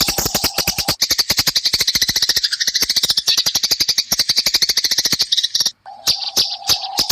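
Eurasian tree sparrows chattering in a fight: a dense, rapid run of harsh high chirps, about ten a second, that breaks off briefly near the end.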